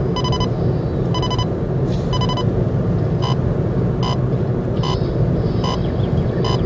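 Steady low rumble of a car's interior while driving, with a short electronic warning beep repeating about once a second, eight times, the later beeps shorter.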